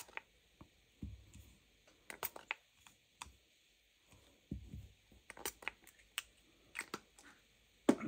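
Small pump spray bottle misting rubbing alcohol over freshly mixed epoxy resin in a plastic cup, in a few short, faint spritzes, mostly in pairs, with light clicks and knocks from handling. The alcohol is sprayed to pop the bubbles in the resin.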